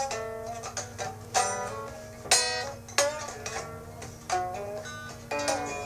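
Music on a plucked string instrument, guitar-like: single notes and chords struck at uneven intervals, each ringing out and fading, over a steady low hum.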